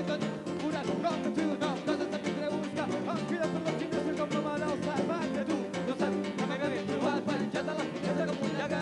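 Live band playing Catalan rumba, with conga drums and guitar keeping a steady beat under a sung melody.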